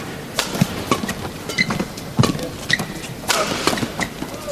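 Badminton rackets striking the shuttlecock in a fast men's doubles rally, a sharp hit about every half second, with short high squeaks from the players' shoes on the court.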